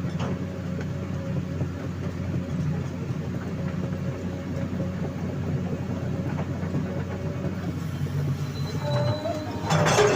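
Hydraulic excavator's diesel engine running steadily under work, with a faint steady whine over the low hum. A louder burst of clanking comes near the end.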